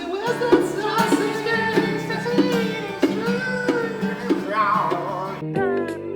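Music with a singing voice over sustained low notes, changing abruptly to a different passage about five and a half seconds in.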